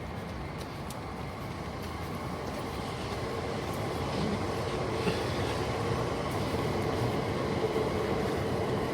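A train running past: a steady rumble with a faint hum that grows gradually louder.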